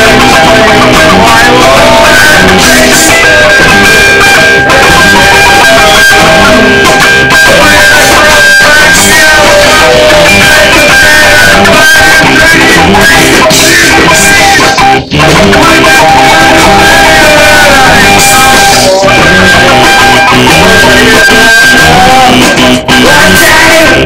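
Live rock band playing loud, with electric guitar and drums. The music drops out for an instant twice, about fifteen seconds in and near the end.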